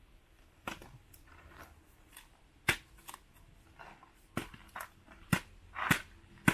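Machete chopping into a nipa palm fruit head to break off single fruits: about seven sharp, irregularly spaced chops and cracks of blade on the woody husks.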